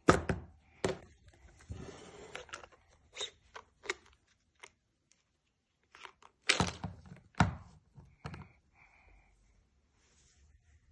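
Objects being handled on a hard surface: a series of sharp knocks and thunks, the loudest at the start and about six and a half seconds in, with a short rustle about two seconds in.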